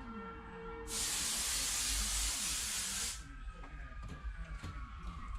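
A burst of loud, even hiss, like a spray or a jet of compressed air, lasting a little over two seconds and then cutting off.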